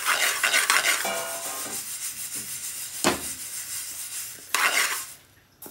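Dry moong daal rattling and scraping in a metal frying pan as the pan is shaken and the lentils are stirred with a spoon while they toast. A single sharp clack comes about three seconds in, and a short burst of rattling follows near the end.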